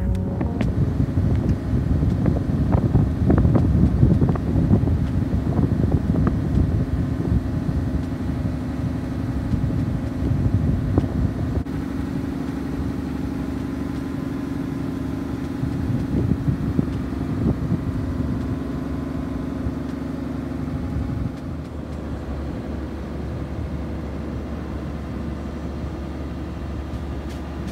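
A barge's inboard engine running steadily on the canal, a low hum. Gusty noise lies over it for about the first twenty seconds, then eases off.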